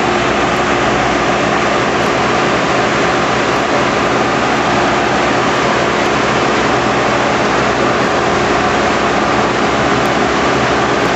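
Large engine of tree-removal machinery running at a steady speed, loud and unchanging, with a constant rushing noise over it.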